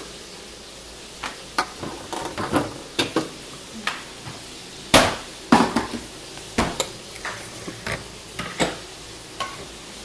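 Chicken pieces frying in oil with a steady low sizzle, over which a cooking utensil clicks and knocks irregularly against the pan, the loudest knock about five seconds in.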